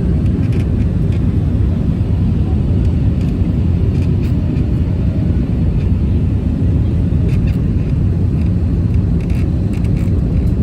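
Steady low rumble of jet engines and rushing air heard inside the cabin of an Airbus A320-family airliner in flight after take-off.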